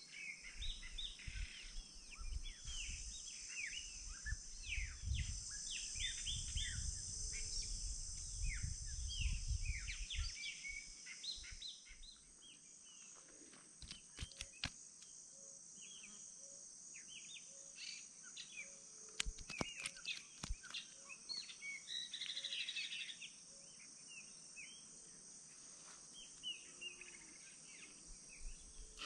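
Birds singing, a dense run of short chirps through the first twelve seconds and scattered calls after, over a steady high insect trill. A low rumble sits under the first ten seconds, and a few sharp clicks come in the second half.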